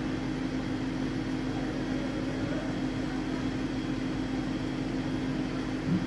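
Steady machine hum with a constant low tone and an even hiss underneath.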